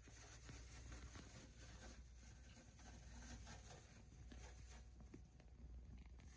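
Faint rustling and scratching of wood-shavings bedding as a hamster moves through it, a soft crackle dotted with small ticks.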